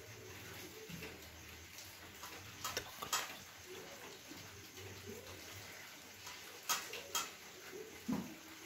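Kitchen knife cutting slices from a soft rolled date-and-nut log on a steel plate, with a few faint clicks as the blade meets the plate.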